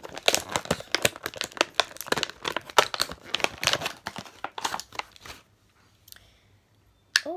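Clear plastic toy packaging crinkling and crackling as hands work it open, a dense run of crackles that stops about five seconds in.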